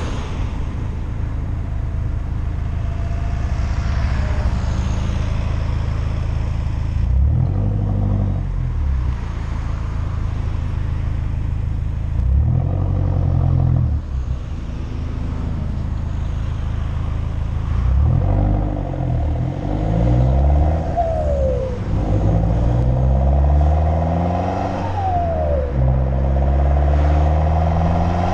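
Ford Focus Mk2 with a custom straight-piped dual exhaust, catalytic converter still fitted, driving under way. The exhaust note is fairly steady at first, then in the second half the revs climb and drop again several times as the car accelerates and changes gear.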